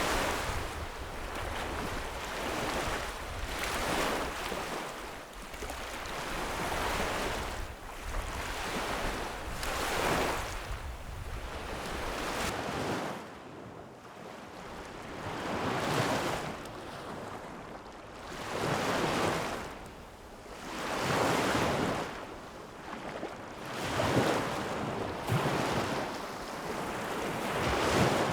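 Small lake waves breaking and washing onto the shore, swelling and fading every two to three seconds. Some wind rumble on the microphone.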